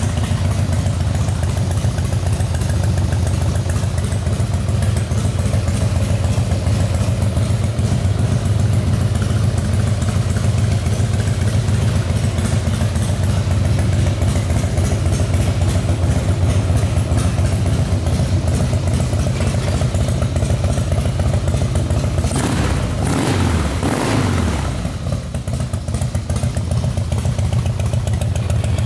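Harley-Davidson Night Train's 1450 cc Twin Cam V-twin engine idling steadily, with a short rise and fall in pitch a little after twenty seconds in.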